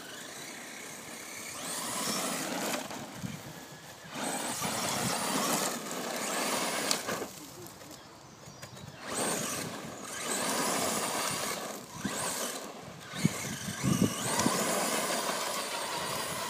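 FTX Carnage brushless four-wheel-drive electric RC truck driving hard on loose dirt and gravel: the motor and drivetrain whine together with grit spraying from the tyres, surging with each burst of throttle and dropping away between them, several times over. A few sharp clicks come about three-quarters of the way through.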